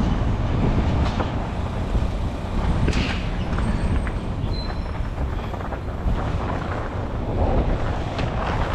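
Wind buffeting a phone microphone over the steady rumble and hiss of a self-service car wash bay, with a few short knocks and scrapes.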